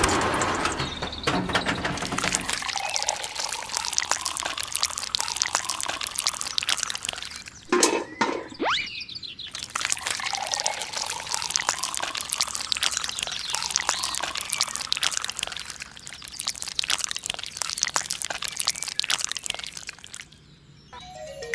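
Liquid or wet mix pouring and splashing in a dense, crackling stream, with a brief break about eight seconds in.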